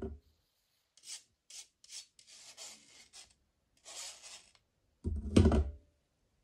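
Several short, dry rubbing and scraping sounds, then a loud dull knock a little after five seconds.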